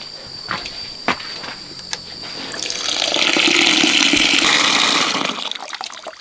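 Water from an outdoor tap pouring into a plastic basin of freshly boiled noodles, to cool and rinse them in cold water. The flow starts about two and a half seconds in, runs strongly, and stops near the end.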